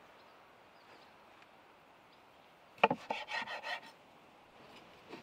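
A sharp knock on a wooden cutting board, then under a second of quick rasping strokes as a kitchen knife saws through a tomato's skin and flesh.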